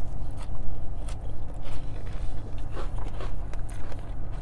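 Close-up biting and chewing of food, with short sharp clicks of a plastic fork against a plastic takeout container, over a steady low hum.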